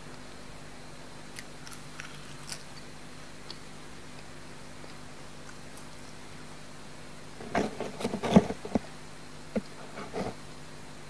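Close-miked crunching and crackling of crisp snacks being eaten and handled: a few light crackles early on, a dense burst of crunches about two-thirds of the way through, and a few more crackles near the end.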